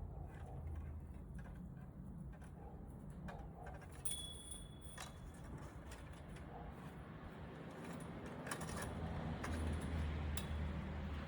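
Light metallic clinks and knocks over a steady low rumble, with a brief ringing tone about four seconds in.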